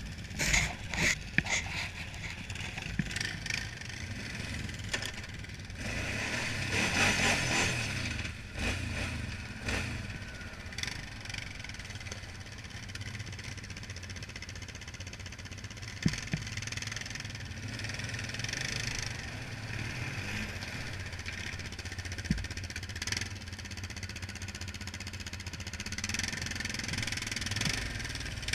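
ATV engine running at low revs while riding slowly, a steady low hum with irregular bursts of hissing noise and a few short knocks over it.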